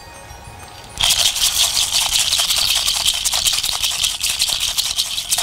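A hand rattle shaken continuously, a dense fast rustle of many small ticks that starts suddenly about a second in.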